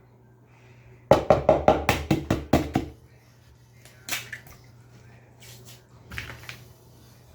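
A quick run of about a dozen sharp taps, roughly seven a second, then two single knocks later on: kitchen taps while an egg is being handled for batter.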